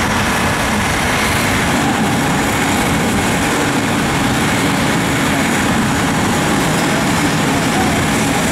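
Big farm tractor's diesel engine running steadily, with a constant low hum and no change in speed.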